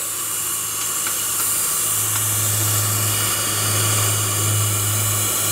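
Steady hiss of steam from a 5-inch gauge live-steam model locomotive that is in steam, under a steady low hum that grows louder about two seconds in.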